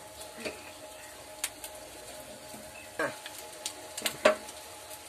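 A spoon stirring and lifting cooked biryani rice in a metal pot, with several scrapes and clinks against the pot, the loudest a little after four seconds in, over a steady low hiss.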